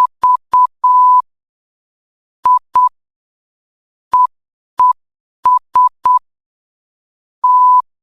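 Morse code practice tones: a single steady beep of about 1 kHz keyed on and off in short dits and longer dahs, grouped into letters separated by pauses.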